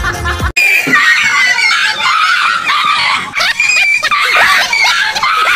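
A dog yelping and screaming in fright at a fake tiger: many shrill, overlapping yelps that bend up and down in pitch. They start abruptly about half a second in, after a short burst of laughter.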